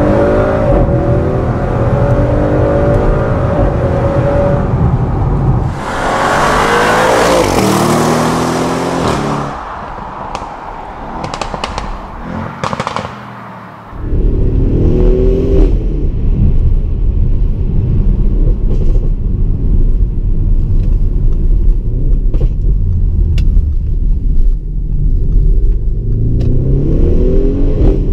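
Audi RS6's 4.0-litre twin-turbo V8 under hard acceleration, its note climbing in pitch and stepping through the gear changes. About a third of the way in, a loud rushing noise takes over. The engine then drops back quieter, with a few sharp cracks, before pulling hard again from about halfway.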